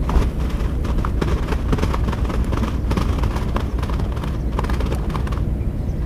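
Spinning fishing reel being cranked to retrieve a lure, a rapid irregular clicking over a steady low rumble.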